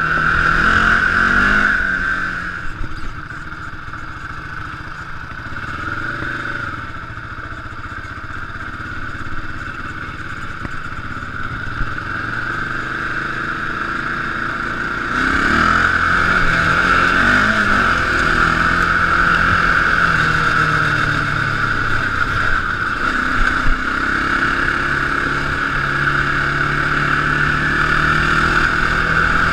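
Can-Am DS650 sport quad's single-cylinder four-stroke engine running under way, its pitch rising and falling in steps as the throttle is worked and it changes gear. It gets louder about halfway through as it accelerates.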